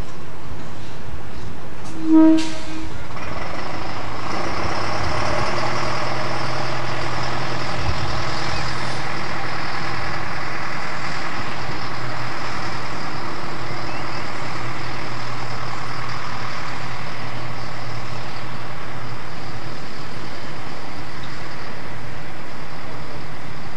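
A short pitched toot about two seconds in, then a narrow-gauge diesel locomotive's engine running steadily with a low hum.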